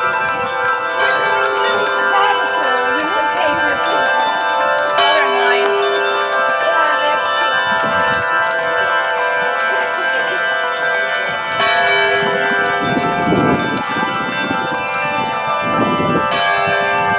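Church bells rung by rope in celebration, ringing continuously with many overlapping tones that hang on, and a bell striking afresh every few seconds.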